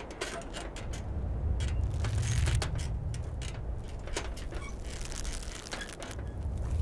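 Wooden cable-tool drilling rig working: creaks, clicks and knocks from the bull wheel, rope and gearing over a low rumble that swells about two seconds in and then eases.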